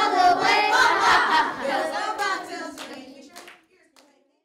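Group of children's voices shouting and clapping right after finishing a song, fading out about three and a half seconds in.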